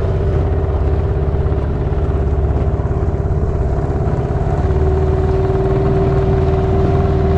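Dinghy outboard motor running steadily under way, growing a little louder and steadier about two-thirds of the way through.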